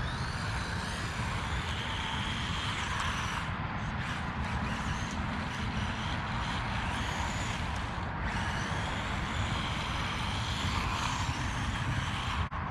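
Small electric motor and drivetrain of a 1/18-scale Haiboxing Ratchet RC truck whining as it is driven, the pitch rising and falling with the throttle, over a steady low rumble.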